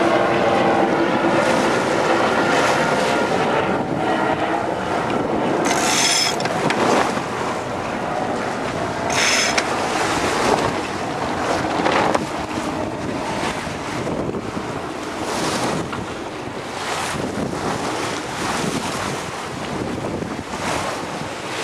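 Wind buffeting the microphone and water rushing and splashing past the hull of a small sailboat under way in choppy water. Two short crackles stand out, about six and nine seconds in.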